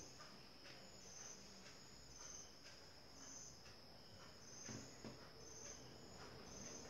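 Near silence with a cricket chirping faintly, short high chirps repeating about once or twice a second, and faint soft rustling as hands smooth a fuzzy yarn scarf on a wooden board.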